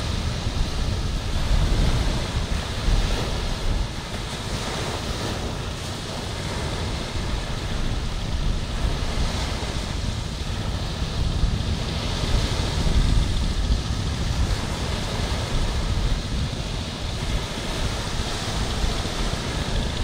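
Small waves breaking and washing up a beach, surging and easing every few seconds, with wind buffeting the microphone as a low rumble underneath.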